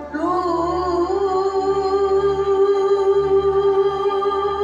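Live sholawat music from a small Islamic devotional band: one long held note that wavers at first and then stays steady, over a low sustained backing.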